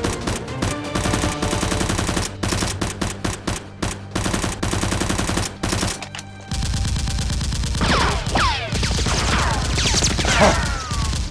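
Rapid volleys of gunfire shots, dense and repeated for about the first six seconds, over background music. After that the shooting stops and the music carries on with a steady low beat and some falling swooping tones.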